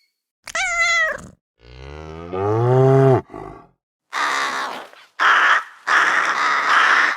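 A series of animal sound effects. First a short high call that falls in pitch, then a long low cow moo that rises in pitch, then two harsh roars of about a second each, from about four seconds in.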